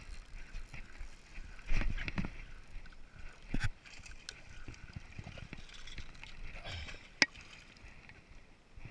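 Handling noise on a bass boat with water sloshing: a loud thump about two seconds in, a splash in the water about a second and a half later, and a single sharp click near the end.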